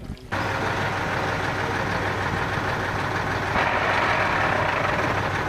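Heavy truck engine running steadily with a constant low hum. It cuts in abruptly about a third of a second in and grows louder a little past halfway.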